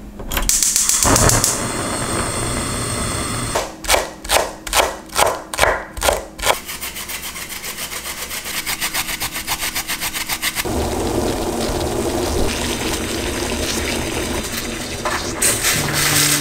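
Cicadas singing: a pulsing call about three times a second, going over into a fast, continuous buzz. There is a brief hiss near the start and a short burst near the end.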